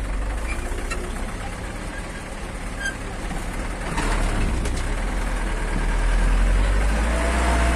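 Steady low rumble of a moving vehicle's engine and road noise, heard from inside the vehicle, growing louder from about four seconds in.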